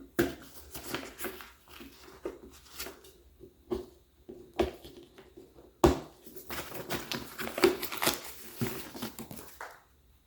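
Handling of small parts and packaging: irregular rustling and crinkling with light clicks and knocks, and one sharper knock about six seconds in.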